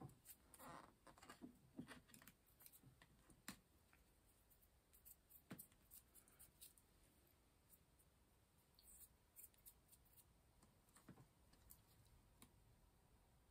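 Near silence with faint handling noise: scattered light clicks and rustles of fingers working artificial pine sprigs on a pillar candle.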